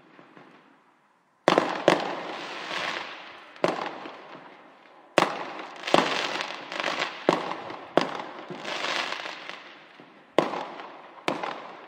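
Fireworks going off: around a dozen sharp bangs at uneven intervals, each trailing away in a noisy fade, starting about a second and a half in after a short near-silent gap.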